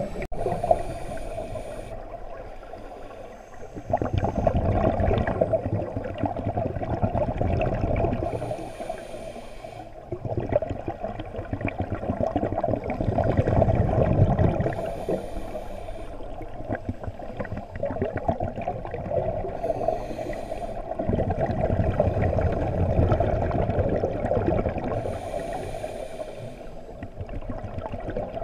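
Scuba diver breathing through a regulator, heard underwater through the camera housing: a slow cycle of a short hissing inhale every five or six seconds, each followed by a longer bubbling rumble of exhaled air.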